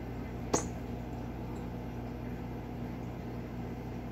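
Steady low electrical hum of a room appliance, with one sharp click about half a second in.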